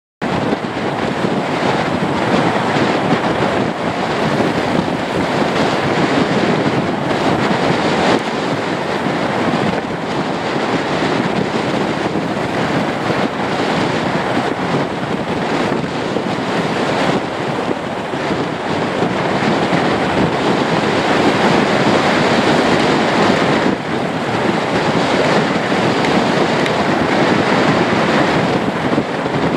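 Wind rushing over the microphone, a loud, steady, fluctuating roar that begins abruptly at the start.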